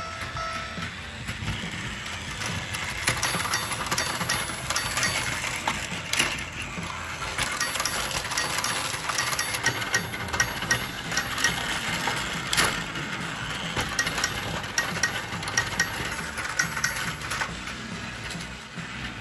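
Battery-powered toy motors running steadily, with the plastic track and toy parts clicking and rattling as the toy trains and cars move along.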